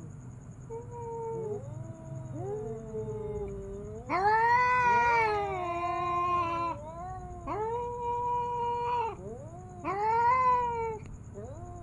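Two tomcats caterwauling at each other in a territorial standoff: low, wavering yowls that swell into loud, drawn-out howls about a third of the way in, followed by two more long howling bouts, the two voices sometimes overlapping.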